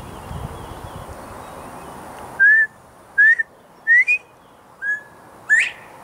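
Male northern bobwhite whistling: six short, clear notes starting about two seconds in, most sliding upward. The last and loudest is a sharp rising 'white' note, just after a lower flat one.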